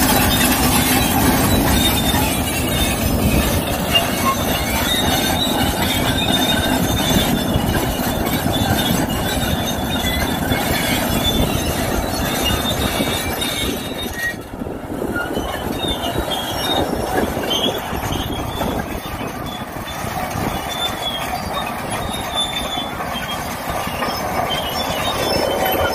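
Komatsu D375A crawler dozer travelling: its diesel engine running under the clatter and high squeal of its steel tracks, briefly quieter about halfway through.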